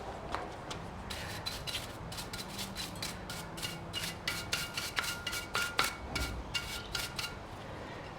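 Quick, irregular scraping strokes of metal on metal, with a light ringing tone in them. They start about a second in and stop near the end, as parts of a Ryobi wood chipper shredder are worked on during dismantling and cleaning.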